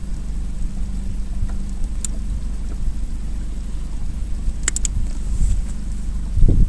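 Boat motor running with a steady low hum while the boat holds nearly still. A quick run of three sharp clicks comes a little before the end, and a louder low thump right at the end.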